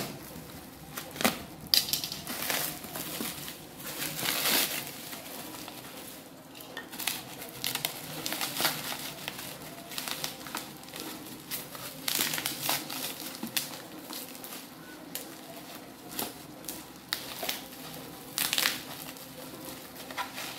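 Plastic bubble-wrap packing crinkling and crackling in irregular bursts as it is pulled apart and unwrapped by hand.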